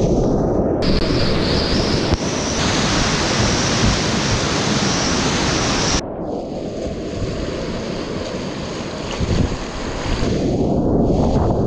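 River whitewater rushing and splashing around a kayak, with wind on the microphone. The rush is loudest through the first half and drops to a softer flow of fast water about halfway through.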